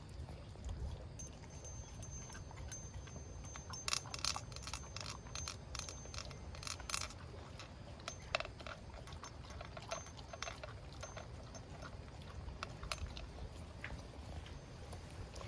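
A small pet eating its breakfast: scattered crunches and sharp clicks of food being bitten and picked up, busiest about four to seven seconds in and again around eight to eleven seconds.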